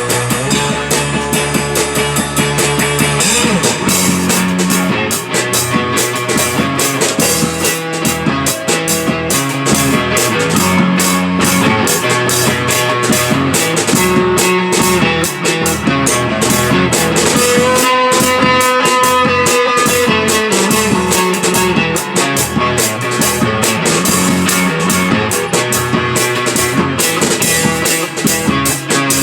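Band playing an instrumental rock piece. A dense, steady beat comes in about three seconds in, and a long held note rings out about two-thirds of the way through.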